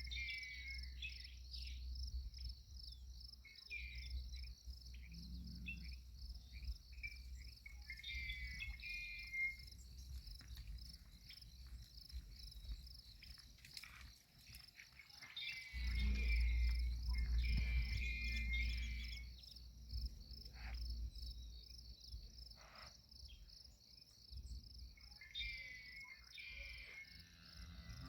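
Crickets chirping in a steady, pulsing chorus through the dusk, with scattered short chirping calls from other animals and a low rumble that swells for a few seconds past the middle.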